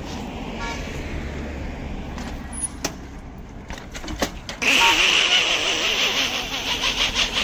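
Outdoor road noise beside traffic while a bicycle rides and then falls over: a steady low rumble with a few sharp clicks, then about two-thirds through a sudden, much louder rushing hiss that lasts a couple of seconds.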